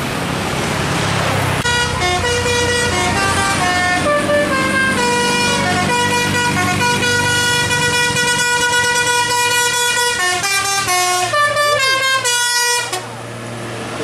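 Musical 'telolet' horn on a Jetbus 3+ high-deck tour bus playing a tune of held notes that step up and down in pitch, starting about two seconds in and stopping about a second before the end. Under it, the steady low hum of the bus running.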